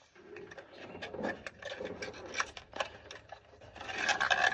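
Packaging rustling, with small clicks and knocks as a new spark plug is unpackaged and handled. It is loudest near the end.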